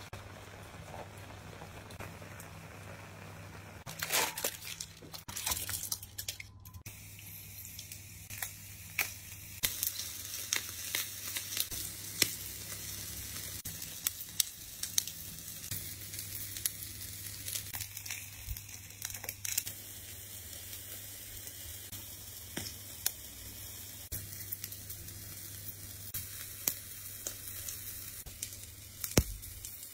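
Food sizzling on a hot grill grate over glowing heat, with frequent sharp pops and crackles of spitting fat. About four seconds in, aluminium foil crinkles and rustles for a few seconds.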